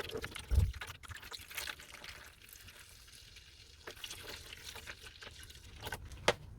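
Rust-remover solution being poured into a tub of rusty steel saw parts to soak them: a soft pouring and trickling of liquid, with a low thump about half a second in.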